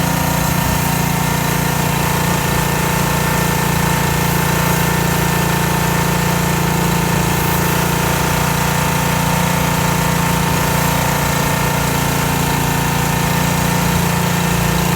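Pressure washer running steadily: a constant motor drone with a hiss over it.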